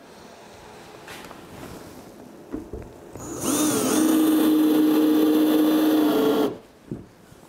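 Cordless drill with an Allen bit driving a fastener through a Hyfax runner into the plastic sled. About three seconds in, the motor whines quickly up to speed, then runs at a steady pitch for about three seconds and stops suddenly.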